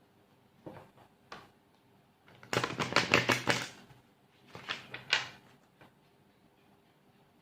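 Tarot cards being shuffled by hand: a few single taps, then a quick burst of rapid card flicks about two and a half seconds in, and a shorter flurry a couple of seconds later.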